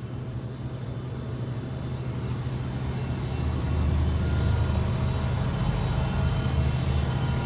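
Outdoor heat pump unit running: a steady low hum with a few steady tones above it, growing louder over the first few seconds and then holding steady.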